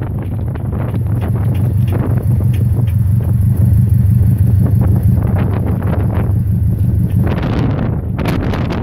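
Steady low rumble with crackling wind buffeting and handling noise on the microphone, a little louder in the middle.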